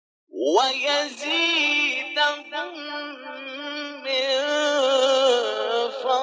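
A male Quran reciter chanting one long, ornamented, melismatic phrase with wavering pitch. It begins about a third of a second in with an upward glide and runs without a break.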